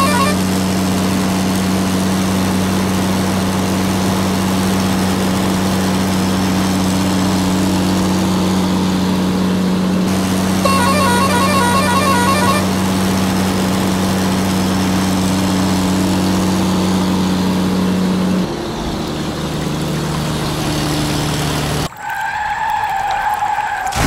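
Dubbed lorry sound effect: a steady engine drone, with a warbling horn honking for about two seconds midway. Near the end the drone drops in pitch and cuts out, and a short warbling tone follows.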